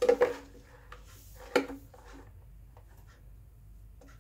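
Hard plastic parts of a reverse osmosis water filter being handled as a greased seal goes back into place: a sharp knock at the start and a louder one about one and a half seconds in, each with a brief ring, with light rubbing and small ticks between.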